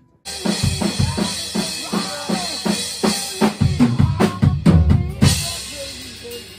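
Drum kit played in a studio: a fast run of kick, snare and tom hits under a cymbal wash, starting suddenly and stopping about five seconds in, leaving a quieter ring.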